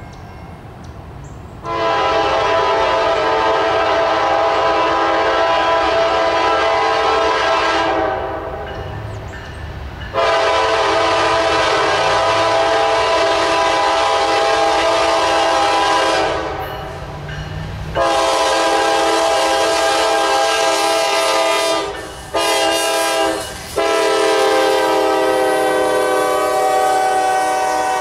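Air horn of a Norfolk Southern GE wide-cab diesel locomotive sounding a chord in a series of long blasts, a short one and another long one near the end, over the low rumble of the approaching freight train.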